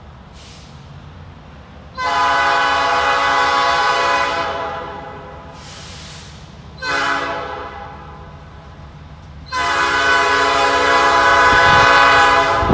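Diesel locomotive air horn sounding for a grade crossing. There is a long blast about two seconds in, a short blast, and then another long blast that is still sounding at the end: the closing long–short–long of the standard crossing signal.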